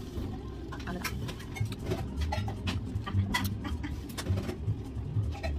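Scattered light clicks and scrapes of a plastic spoon and cup, over a low steady hum.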